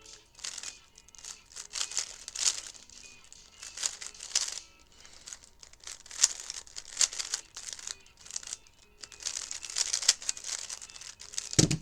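A 3x3 speedcube being turned quickly, its layers giving rapid, irregular plastic clicks and clacks, over faint background music. A short, louder low thump comes near the end.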